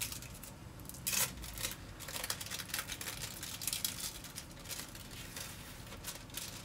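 Plastic food packaging crinkling and rustling as it is handled, in short irregular crackles, over a low steady hum.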